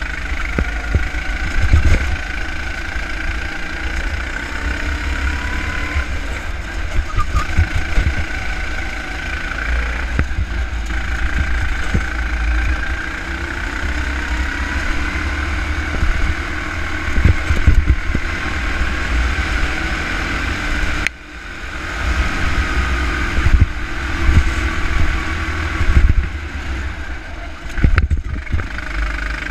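Go-kart engine running hard on track, its pitch drifting up and down through the corners, over heavy wind rumble on the onboard microphone. About 21 seconds in the engine note drops off abruptly and then builds back up.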